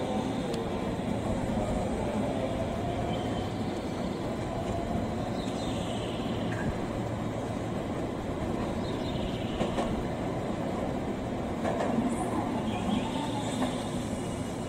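A train running, a steady rumble with a few sharp clicks about two-thirds of the way through.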